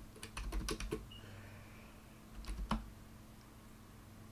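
Computer keyboard typing: a quick run of keystrokes in the first second, then a couple more keystrokes about two and a half seconds in.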